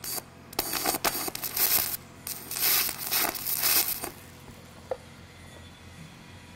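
Stick welding arc on aluminum: an aluminum electrode struck three times in short bursts of crackling and hissing as a T-joint is tacked, the arc stopping about four seconds in.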